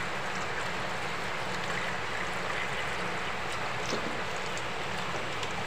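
Steady, even hiss of water, with a few faint clicks.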